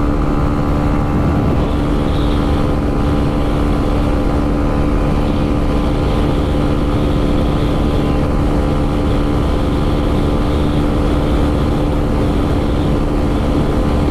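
Motorcycle engine holding a steady high-speed cruise: a constant drone that does not change in pitch, mixed with rushing wind and tyre noise.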